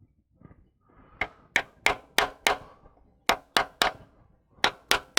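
Hammer tapping on the rusted valve gear of an old Minneapolis Moline engine, sharp ringing metal strikes about three a second in three short runs starting about a second in. The parts are not moving: they are seized solid with rust.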